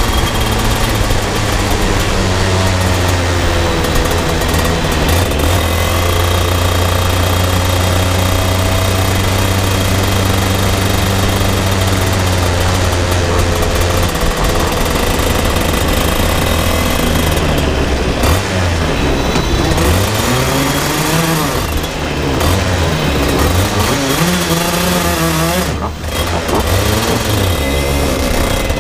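125 cc two-stroke shifter kart engine running at low, steady revs as the kart rolls slowly. From a little past halfway the pitch swings down and up several times as the throttle is blipped, with a brief dip in sound about three seconds before the end.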